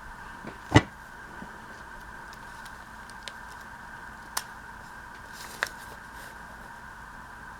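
Crafting materials handled on a work table: one loud knock about a second in, then a few light clicks and taps, over a steady electrical hum.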